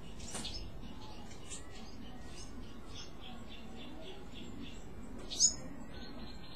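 Small birds chirping: scattered short high chirps, a quick run of repeated notes in the middle, and one sharp, louder call about five and a half seconds in.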